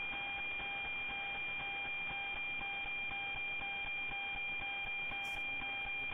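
NOAA-19 weather-satellite APT signal received on a WebSDR in FM mode: a steady high whistle with a faint ticking beat about twice a second, the familiar 'tick-tock' of the satellite's image transmission.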